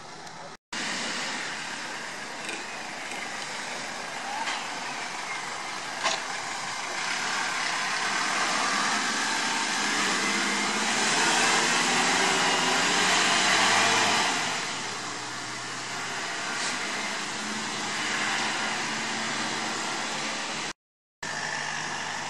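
Road traffic driving past: engine and tyre noise of passing motor vehicles, swelling to its loudest about halfway through as a vehicle passes close. The sound drops out briefly twice.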